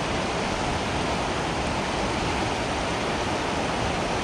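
Steady rush of water pouring over the spillway rapids.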